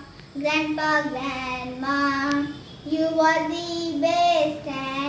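A young girl singing solo, holding long notes in phrases with short pauses between them.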